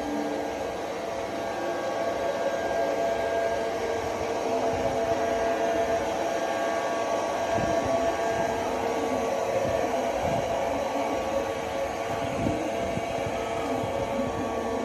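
Multilaser Hydra robot vacuum running: a steady motor and fan whir with several steady whining tones, and a few low knocks in the middle.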